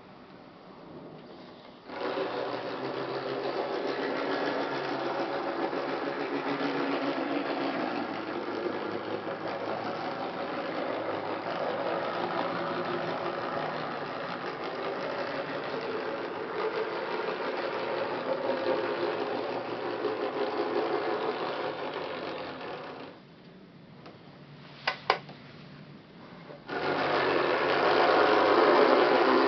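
Nn3 three-truck Shay model locomotive running, a steady mechanical whir and rattle from its motor and geared drive, amplified by the foamcore test board. It stops near the end; two sharp clicks follow, then it runs again louder. The model is new and not yet run in, and it is noisier in reverse.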